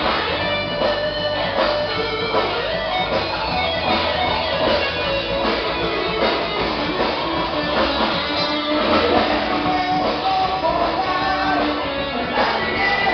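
Rock band playing live, with guitars strumming.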